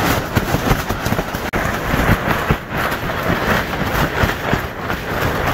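Gusting windstorm wind with torn greenhouse poly plastic sheeting flapping and crackling, a dense run of irregular flaps with no let-up.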